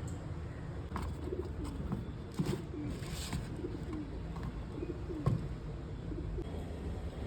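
Birds cooing softly and repeatedly in the background, with a few sharp taps, the loudest about two and a half and about five seconds in.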